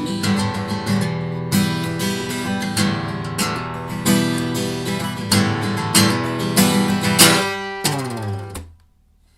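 Acoustic guitar, its cracked top freshly repaired, strummed in rhythmic chords with no singing. Near the end the last chord slides down in pitch and dies away.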